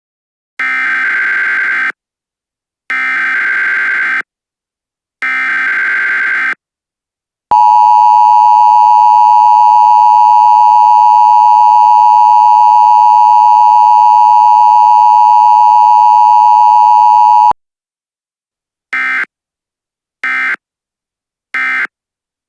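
Emergency Alert System tones: three SAME header data bursts, then the two-tone attention signal held steady for about ten seconds and cutting off abruptly, then three short end-of-message data bursts near the end.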